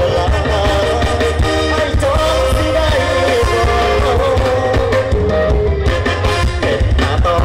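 A live stage-show band playing loud through big stage speakers: a singer over a heavy, steady bass beat.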